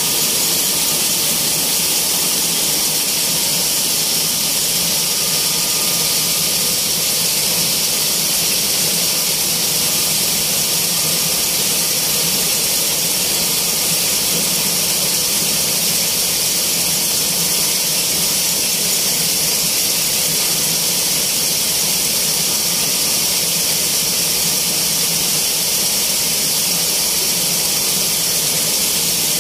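Motor-driven flour mill machinery (an electric motor turning a centrifugal blower/grinder housing) running steadily. It makes a loud, even, high-pitched rushing hiss that does not change.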